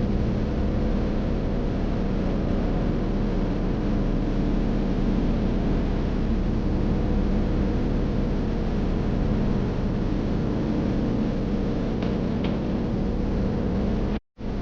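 Steady road and engine noise inside a moving car, a low rumble under a hiss of tyres and wind. It cuts out completely for a split second near the end.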